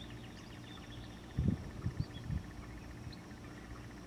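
Outdoor ambience: faint short bird chirps over a steady faint insect trill. A few low bumps come near the middle and are the loudest part.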